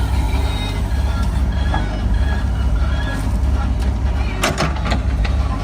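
Heavy diesel engine of earthmoving or haulage machinery running with a steady low rumble, with a brief clatter of sharp knocks about four and a half seconds in.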